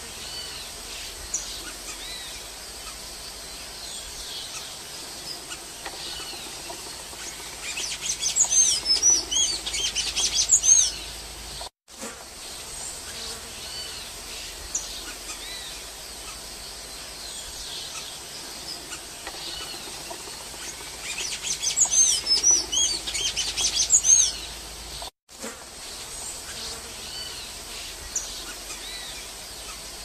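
Golden-chevroned tanager singing: a quick run of high, squeaky twittering notes about eight seconds in, repeated about twenty-one seconds in, each lasting about three seconds. Fainter, scattered high calls fill the gaps, and the sound drops out briefly twice.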